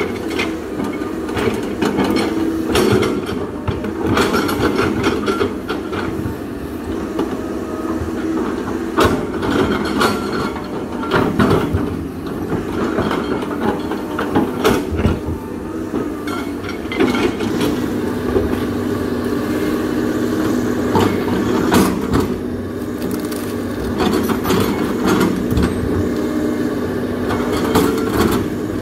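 CAT 320D excavator's diesel engine running under load as the bucket digs and drags soil through tree roots and branches. Frequent sharp knocks and cracks of wood snapping and the bucket striking are heard over the steady engine hum.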